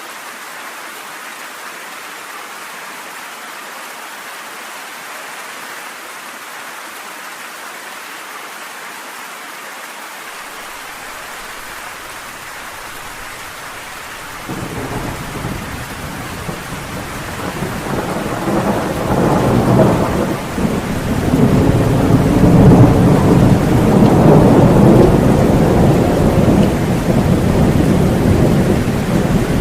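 Steady rain hiss, then about halfway through a long rolling thunder rumble breaks in suddenly and builds, loudest in the last third, with the rain going on underneath.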